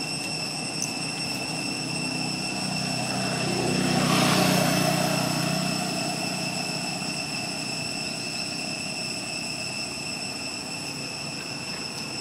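An engine passing by, swelling to its loudest about four seconds in and then fading, over a steady high-pitched whine of several thin tones.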